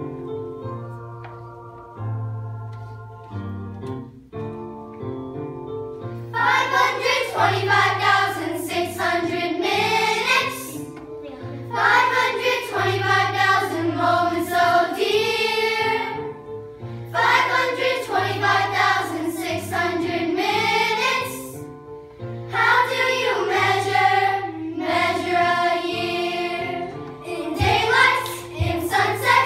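A group of children singing together over instrumental accompaniment. The accompaniment plays alone for about the first six seconds, then the voices come in, in phrases with short breaks between them.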